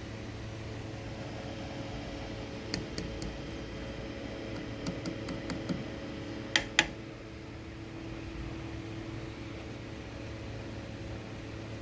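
Steady hiss and low hum from an idling amplifier with no music playing, broken by a few small clicks and then two sharper clicks close together about halfway through.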